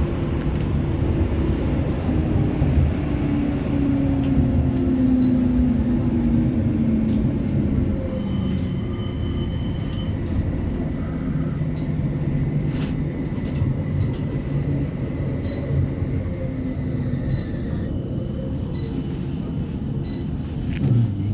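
Inside a CAF Urbos 3 tram running along the track: a steady rumble of wheels on rail, with the traction motors' whine falling in pitch over the first eight seconds as the tram slows. Faint high steady tones sound through the middle.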